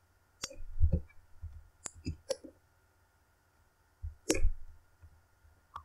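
Computer mouse and keyboard clicks: a handful of separate sharp clicks at irregular intervals, a few with a dull knock under them.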